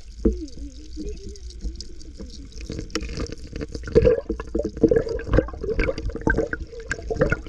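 Muffled underwater sound picked up by a camera held below the surface: water sloshing and bubbling over a low rumble, with many sharp knocks and clicks from about three seconds in.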